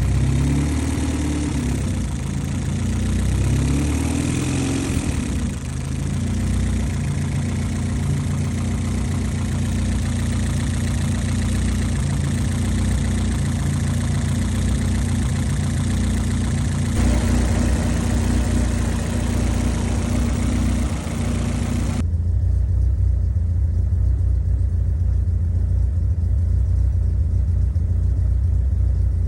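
Honda Civic's B-series VTEC four-cylinder engine idling steadily. Its pitch wavers for the first few seconds before settling. About three quarters of the way through, the sound turns duller as the hiss drops away.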